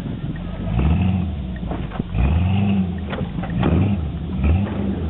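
Off-road Jeep's engine revving hard in repeated surges, rising and falling in pitch, as it claws up a dirt and rock climb with its tyres spinning; a couple of sharp knocks come about halfway through.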